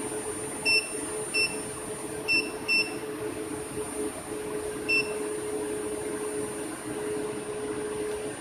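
Five short electronic beeps at irregular spacing, over a steady hum with a faint constant high whine.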